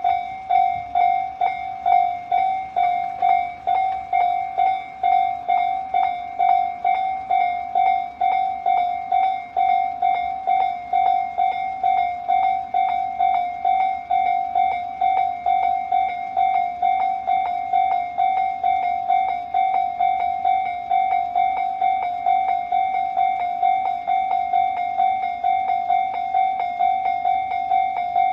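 Japanese electronic level-crossing warning bell of the Tobu Tojo type, ringing a steady repeating ding at roughly two and a half strikes a second: the crossing is warning of an approaching train.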